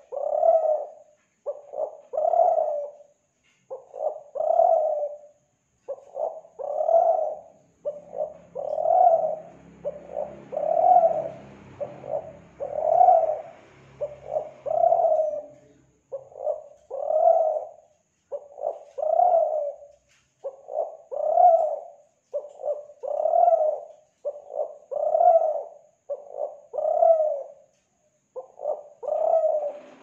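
Spotted dove (tekukur, Kelantan type) cooing: short, regular phrases about one every two seconds, played as a lure call to prompt other doves to sing. A faint low hum sits under the coos for a few seconds mid-way.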